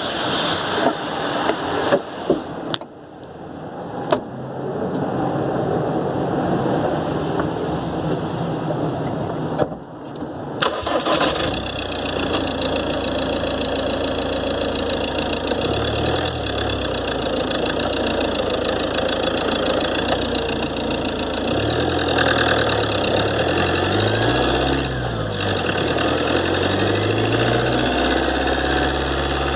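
Ford Transit 2.2 TDCi four-cylinder diesel engine heard from under the bonnet, with its repaired turbocharger whistling; the owner believes the turbo is out of balance. A few sharp knocks come in the first ten seconds or so. After that the engine sound deepens and its pitch rises and falls as the van is driven.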